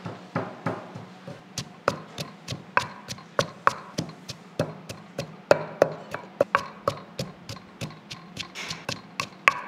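Wooden pestle pounding sliced lemongrass and chili in a clay mortar: a steady run of sharp knocks, about three a second.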